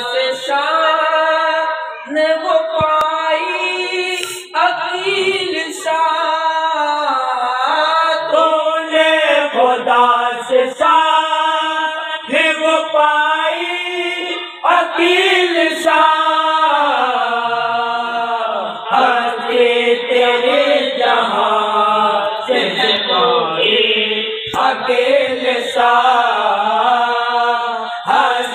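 Men's voices chanting an Urdu devotional song in praise of a Sufi saint, unaccompanied, in long melodic phrases with drawn-out, wavering notes.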